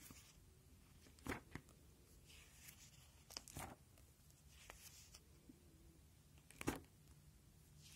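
Clear plastic sheet protectors in a ring binder crackling and rustling as the pages are turned: a few sharp crinkles, the loudest near the end, over a faint rustle.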